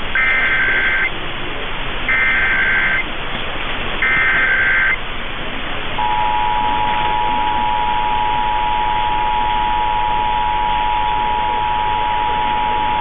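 Emergency Alert System SAME header: three buzzing bursts of two-tone data, each about a second long and a second apart. About six seconds in the EAS attention signal follows, a steady two-tone 853 and 960 Hz tone, all under a steady hiss. Together they mark the start of an Oklahoma Emergency Alert System test.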